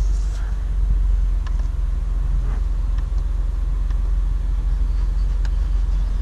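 BMW M3's straight-six engine idling steadily, a low even rumble. A few faint clicks of dashboard buttons being pressed come through over it.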